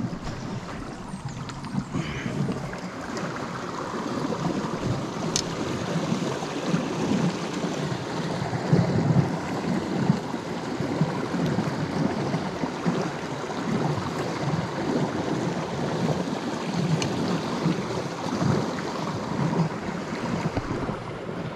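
Steady rushing of a shallow river running among boulders, with wind buffeting the microphone and two faint clicks.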